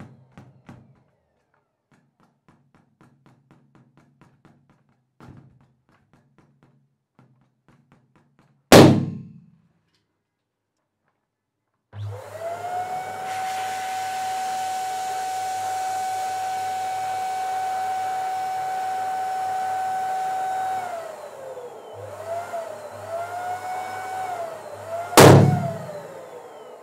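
Two latex balloons burst with loud pops, one about nine seconds in and one near the end. Between them a dual-nozzle electric balloon pump runs with a steady whirring hum while it inflates a balloon. The pump's pitch dips and wobbles for the last few seconds before the balloon on it bursts. Faint light ticks come before the first pop.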